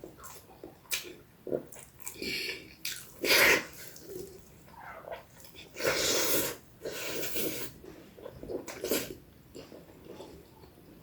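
Close-miked eating sounds of a person eating spicy instant noodles by hand: irregular wet chewing and mouth noises, loudest about three and a half and six seconds in.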